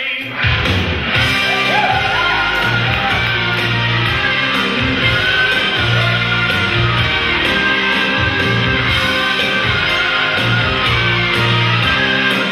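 Rock song playing: the full band with electric guitars and drums comes in about half a second in, with singing over it.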